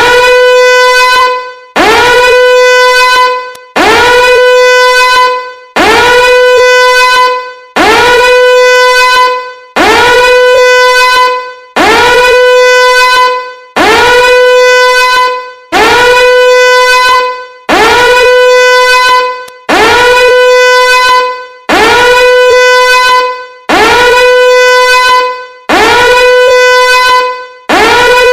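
Loud emergency alert horn sounding in repeated blasts, about one every two seconds. Each blast swoops quickly up to a steady tone, holds for about a second, then fades off.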